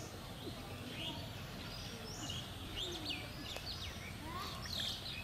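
Small birds chirping and calling around the pond in many short rising and falling notes, over a low steady outdoor rumble.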